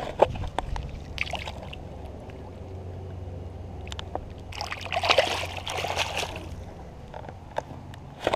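Water splashing for about two seconds, halfway through, as a peacock bass is let go in shallow water and swims off. There are a few sharp clicks near the start and again at the end.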